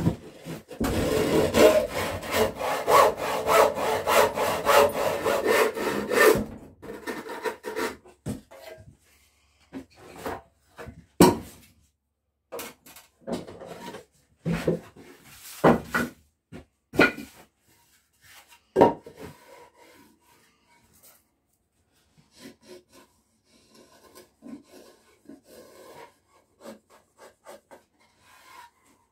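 Handsaw cutting a wooden board in steady, repeated strokes for about six seconds, then stopping. After that come scattered knocks and scrapes of boards being handled on a wooden workbench.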